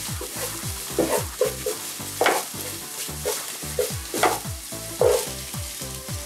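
Green chillies, ginger and garlic sizzling in hot coconut oil while a wooden spatula scrapes and stirs them around the pot, with several loud scrapes. Near the end, sliced onions go into the pot.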